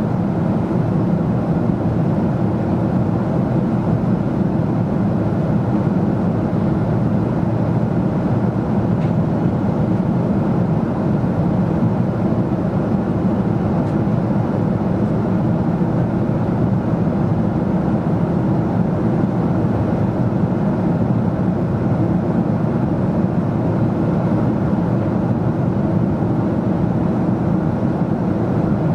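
Boeing 777-200 cabin noise in flight: a steady, even roar of the engines and the air rushing past the fuselage, with no changes.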